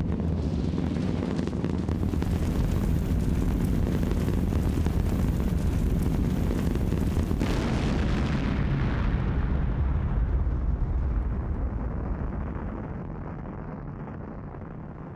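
Deep, continuous rumble of a launch rocket exploding and burning as a fireball, fading away over the last few seconds.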